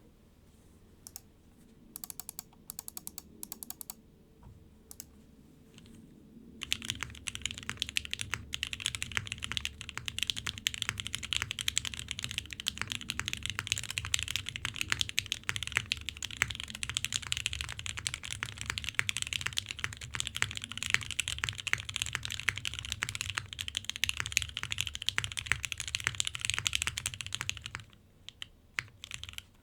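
Hoshizora mechanical keyboard with lubed Gateron Ink Black V2 linear switches on a polycarbonate plate, O-ring mounted, with GMK keycaps, being typed on. A few scattered keystrokes come first, then fast continuous typing from about six seconds in, which stops a couple of seconds before the end, leaving a few last keystrokes.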